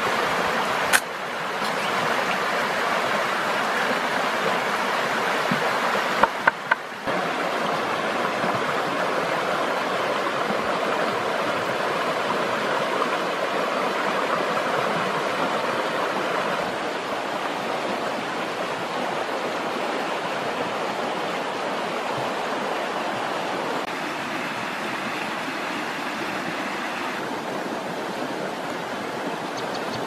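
River water rushing steadily over rocks, with a few brief sharp clicks about a second in and around six to seven seconds in.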